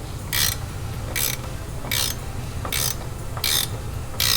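Hand ratchet wrench tightening a nut on an air spring mounting bolt, the pawl clicking in a short burst on each back-stroke, about one stroke every second, over a steady low hum.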